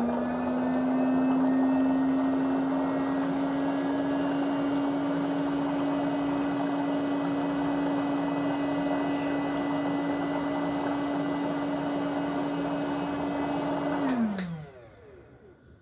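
HoMedics bubble footbath's air pump running with a steady hum while air bubbles through the water. About 14 seconds in it is switched off, its pitch falling as the motor winds down and the bubbling stops.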